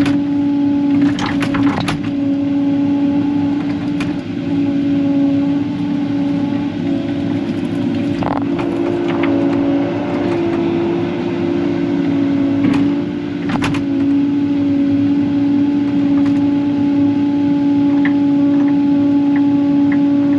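Engine running steadily at a constant speed, giving a loud, even hum with a few short knocks and clicks over it.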